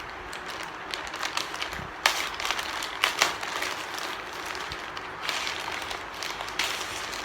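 Parcel packaging being handled and torn open by hand, with crinkling plastic and a few sharp crackles about two and three seconds in.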